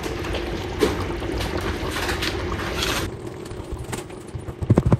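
A spatula stirring thick meat sauce in a large stainless steel pot, with wet squelching and scraping strokes. A steady hum underneath stops about three seconds in.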